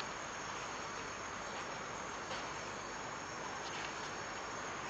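Steady night chorus of crickets and other insects, an even background hum with no distinct events.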